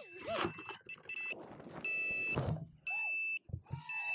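FPV quadcopter's buzzer beeping about once a second after a crash into grass, each high beep about half a second long, with soft rustling between the beeps.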